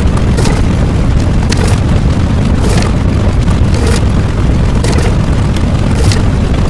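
Loud, continuous deep rumble like an explosion or eruption sound effect, steady throughout, with faint crackles every half second or so.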